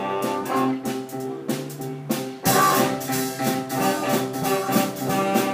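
Live ensemble music with brass and drums played by a conducted band. It gets clearly louder about two and a half seconds in.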